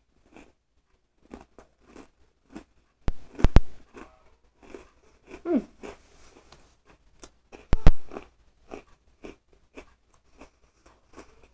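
A person chewing a crunchy Oreo sandwich cookie, in many small crunches. Two loud knocks, about three seconds in and again near eight seconds, and a short falling tone around the middle.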